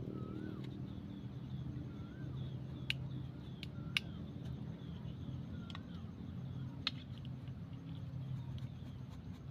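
A short rising-and-falling whistle repeats about every two seconds over a low steady hum, with a few sharp clicks in between.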